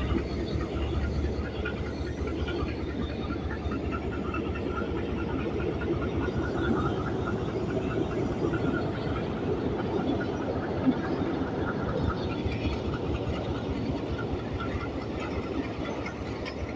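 Departing passenger train rolling past, with a steady rumble and fine rattle of coach wheels on the track and one short sharp clank about two-thirds of the way through.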